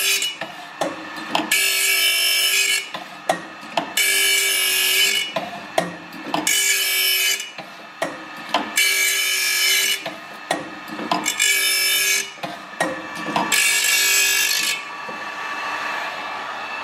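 Grinding wheel of an OSW-5M saw-sharpening machine grinding the carbide tips of a circular saw blade whose tips are largely broken off. Six harsh grinding passes about every two and a half seconds, with sharp clicks of the machine between them. The grinding stops near the end, leaving the motor running with a steady hum.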